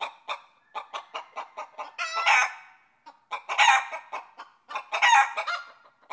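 Chicken clucking in quick short clucks, then giving three longer drawn-out calls from about two seconds in.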